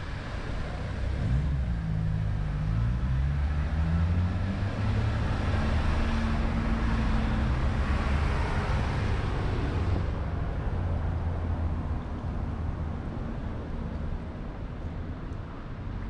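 A small car driving slowly past on a cobbled street, its engine note rising and falling as it changes speed, with tyre noise on the cobblestones. It fades after about ten seconds.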